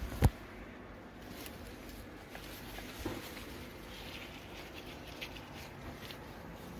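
Faint rustling of raspberry leaves and canes as a hand pushes in among them, with a few small ticks. A single sharp click comes a moment after the start.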